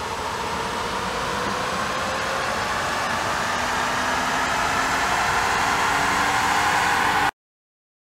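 A car wheel spinning on a chassis dynamometer's rollers: a steady rush of tyre and roller noise with a faint whine that rises slowly in pitch and grows louder as speed builds. It cuts off suddenly near the end.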